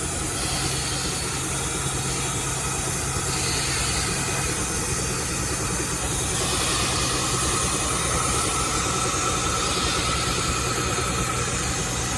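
75 HP Case steam traction engine belted to a sawmill, running steadily with a low hum and hiss. A steady high whine joins about six seconds in.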